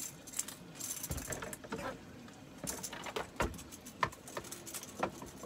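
A freshly caught small blue catfish being handled on the boat with its hook and line: a quick run of light clicks and rattles in the first second or so, then scattered single knocks.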